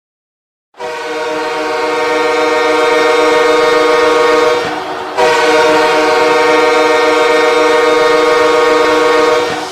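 Two long, steady blasts of a loud horn. The first starts suddenly about a second in and the second follows a brief dip just before the halfway point.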